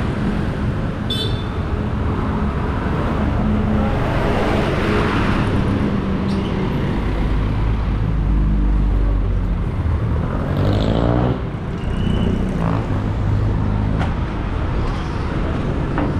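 Road traffic: engines of passing vehicles running steadily, with a deeper low rumble about seven to nine seconds in and a rising engine note near eleven seconds.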